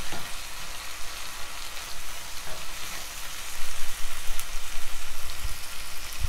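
Chopped onions, tomatoes and green chillies sizzling in oil in a nonstick kadai, the cooked-down tomato base of a masala, stirred with a spatula for the first few seconds. A few dull knocks come near the end.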